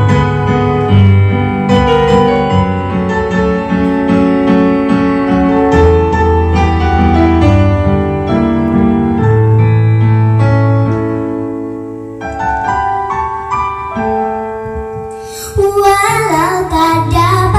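Instrumental interlude of a children's song played on a Yamaha PSR-S775 arranger keyboard in a piano-like voice over a bass line. Near the end a young girl's singing comes back in over the accompaniment.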